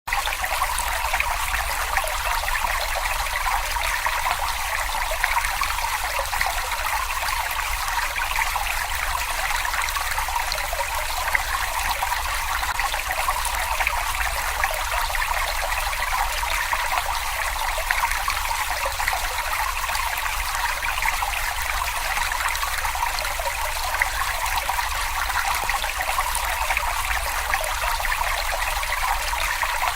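Brook water babbling and trickling steadily over stones.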